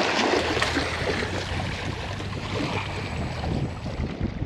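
Wind buffeting the microphone over the sound of bay water lapping against jetty rocks, a little louder in the first second.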